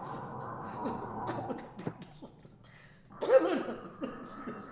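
Wordless human vocal sounds with a louder vocal outburst a little over three seconds in.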